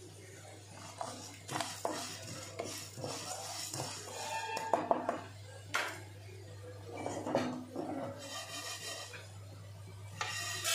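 A wooden spatula stirs coriander seeds dry-roasting in a non-stick pan, with irregular scrapes and a dry rattle of seeds against the pan. Right at the end the roasted seeds pour from the pan onto a steel plate in a quick shower.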